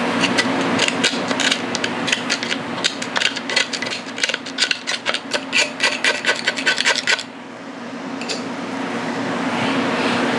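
Quick, repeated scraping strokes, several a second, as a tool digs a dried mud dauber nest out of a part of an old Sheldon metal lathe; the scraping stops about seven seconds in.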